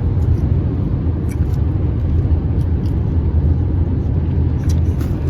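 Steady low rumble of road and engine noise inside the cabin of a moving car, with a few faint ticks.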